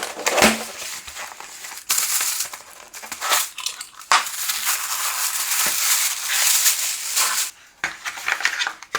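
Cardboard packaging and plastic wrapping rustling and crinkling as a keyboard box is opened and its contents handled, with a few sharp clicks and knocks.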